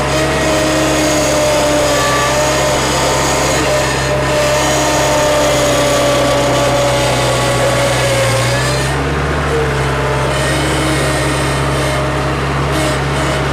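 Small wheeled skid steer's engine running hard under load with a whine from its hydraulics while it scoops and lifts dirt in a heavy 4-in-1 bucket, close to its lifting limit. The engine note shifts about nine seconds in.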